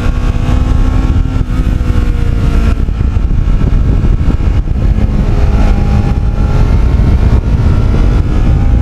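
Kawasaki Ninja 650R parallel-twin engine running under way, mixed with heavy wind rush on the camera microphone. The engine pitch sags slightly over the first few seconds, then climbs gently later on.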